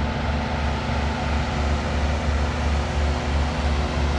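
Engine running steadily, a low throbbing hum with a constant pitch.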